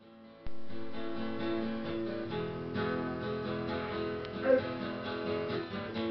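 Acoustic guitar being strummed, chords ringing on from about half a second in. A short, louder pitched sound stands out about four and a half seconds in.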